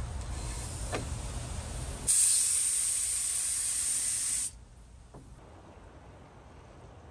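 Gravity-feed paint spray gun spraying: a loud burst of air-and-paint hiss starts suddenly about two seconds in, runs steadily for about two and a half seconds and cuts off when the trigger is released.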